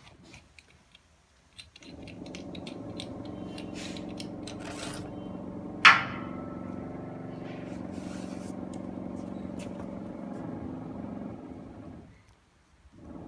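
Window-film roll cutting machine running with a steady hum as it turns the film roll, starting about two seconds in and stopping near the end. A single sharp metallic clank rings out about six seconds in.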